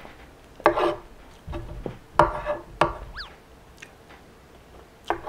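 Eating with a metal spoon: a few sharp clicks of the spoon against the teeth and the wooden board, with quiet chewing and handling noise in between.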